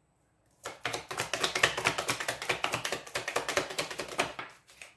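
A tarot deck being shuffled by hand: a rapid run of card clicks lasting about four seconds, starting about half a second in.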